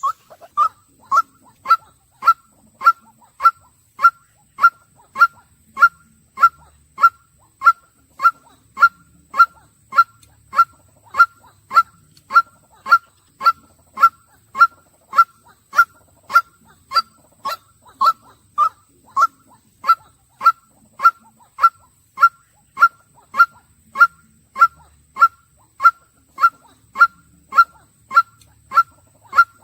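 White-breasted waterhen calling one short, slightly falling note over and over at an even pace, about two calls a second.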